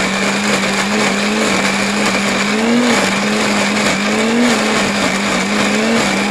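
Small electric blender running continuously, grinding dried and fresh chillies with sliced garlic and shallots into a paste. The motor hum is steady and loud, rising briefly in pitch a few times as the load in the jar shifts.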